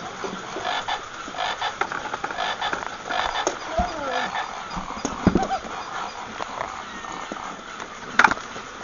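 Battery-operated walking toy animals clicking and clattering as their mechanisms run, with a sharp knock near the end. A few short, falling, call-like sounds come in the middle.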